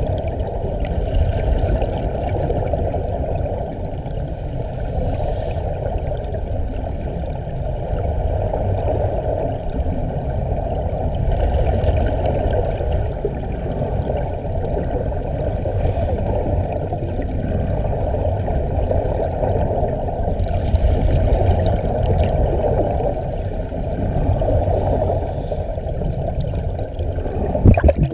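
Muffled underwater rushing and bubbling from divers' air bubbles, with a brighter bubbling surge every few seconds and a single knock near the end.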